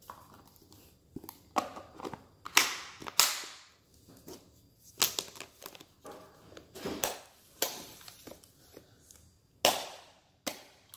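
Plastic lunch box being closed: the lid set on, latches snapped shut and a plastic carry handle clipped on, giving a run of sharp plastic clicks and knocks spread across several seconds.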